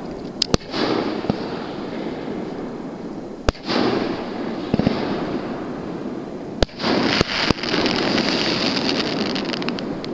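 Fireworks going off: about six sharp bangs, two close together at the start, one in the middle and three in quick succession later, each followed by a drawn-out crackle.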